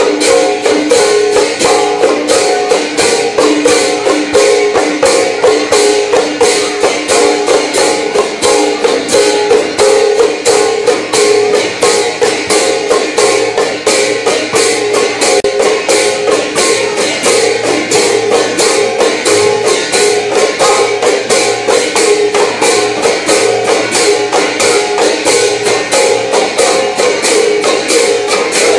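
Several khol drums, the Assamese clay barrel drums of Gayan-Bayan, played together in a fast, even rhythm. Jingling metallic cymbal-like clashes run on every beat.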